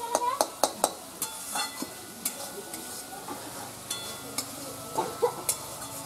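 Metal spatula stirring spice paste frying in a metal karai, with sharp clinks and scrapes against the pan over a steady sizzle. The clinks come quickly in the first second or two, then more sparsely.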